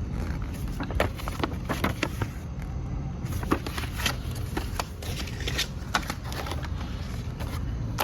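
Hands handling a product box and its contents: scattered small clicks, taps and rustles over a steady low background rumble.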